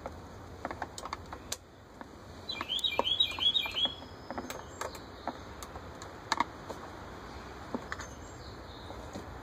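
Scattered light metallic clicks of a 10 mm wrench working the bolt on a generator's carburetor float bowl. A bird chirps a quick run of notes about three seconds in.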